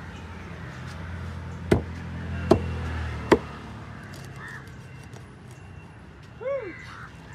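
A large knife knocks three times against a wooden cutting block while a queenfish is being filleted, the last knock the loudest. A crow caws once near the end.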